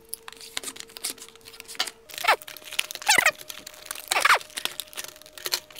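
Stiff clear plastic clamshell packaging being pried and pulled open by hand: crackling, crinkling plastic with sharp clicks and a few creaks as it flexes.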